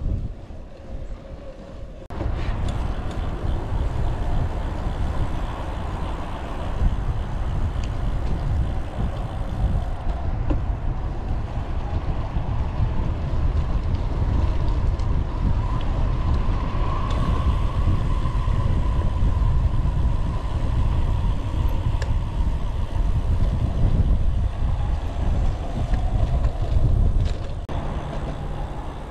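Steady wind rush over the microphone of a cyclist riding at speed, a heavy low rumble that comes up about two seconds in.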